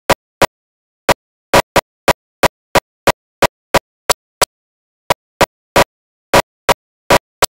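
Audio track breaking up into dropouts: short snatches of sound, about three a second at uneven spacing, each cut off into dead silence. These are clipped fragments of the singing and piano performance.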